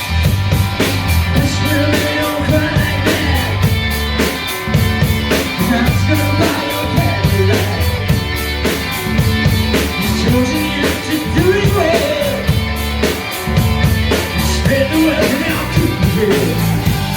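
Live rock band playing amplified during a sound check: drum kit keeping a steady beat with cymbal or hi-hat hits, heavy bass underneath, and a singing voice over the top.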